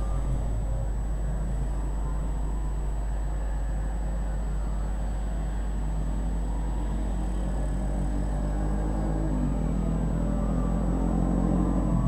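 Street traffic, mostly small motorbike engines passing with a steady low rumble. It grows louder near the end as an engine comes closer.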